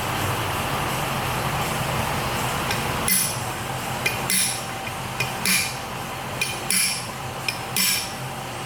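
A steady low hum, then from about three seconds in a series of irregular sharp metallic clinks and taps, like steel tools and parts being knocked and set down.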